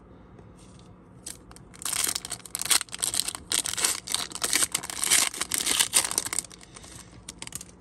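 A foil hockey card pack wrapper being torn open and crinkled by hand. The crackling starts about two seconds in, goes on for several seconds, and trails off into a few light rustles.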